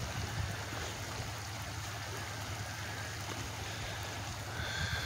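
Steady rush of floodwater running across a flooded desert wash, with rain falling on the water's surface.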